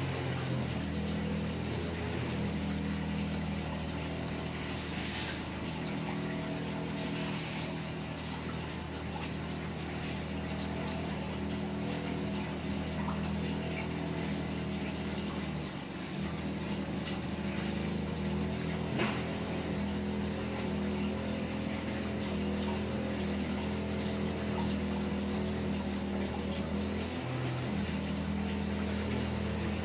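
Electric dog hair clippers buzzing steadily while trimming a dog's coat, with one brief click past the middle.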